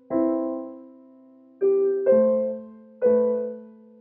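Slow, soft piano music: four chords struck about a second apart, each left to ring and die away.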